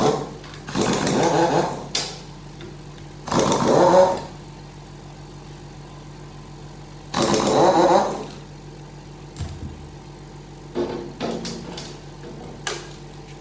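A power driver spinning out the bolts of an automatic transmission's oil pan in three bursts of about a second each, its motor speeding up and slowing with the trigger, followed by a few light clicks.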